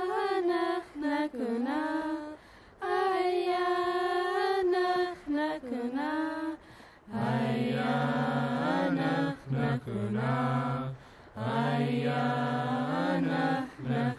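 Unaccompanied chanted singing in long held notes that slide at the ends of phrases. A high voice sings the first phrases, then about seven seconds in a low man's voice takes up the chant.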